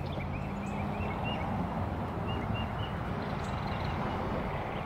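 A bird chirping a rapid run of short, repeated notes over a steady low background noise; the chirping fades out about halfway through.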